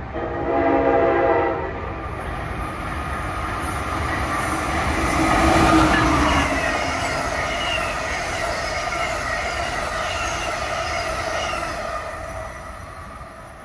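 A passenger train's horn sounds once for about a second and a half. Then the train passes through at speed, its wheels rumbling on the rails, loudest about six seconds in and fading near the end.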